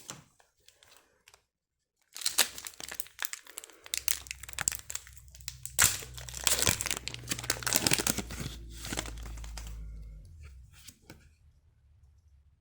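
A foil Pokémon booster pack crinkling and tearing open, starting about two seconds in. A steady low rumble runs under it from about four seconds to about ten.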